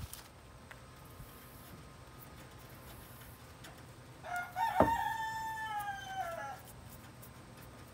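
A rooster crows once, about four seconds in: one call of about two seconds that holds its pitch and then falls away at the end. A sharp knock sounds near the start of the crow.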